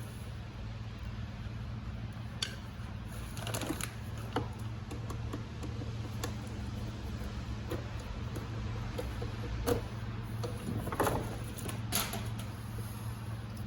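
Hands working a silicone intake coupler onto the intake in an engine bay: scattered knocks, clicks and rubs, the sharpest a little before the end, over a steady low hum.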